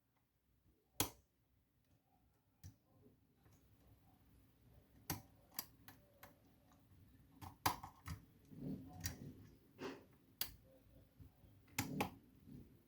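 Lock pick and tension tool working the pins of a pin-tumbler lock: scattered sharp clicks and small knocks at irregular intervals, about ten in all, with soft handling noise between them.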